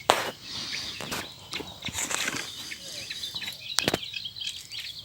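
Outdoor ambience with birds chirping faintly and a scatter of sharp knocks and clicks, the loudest just after the start and another about four seconds in.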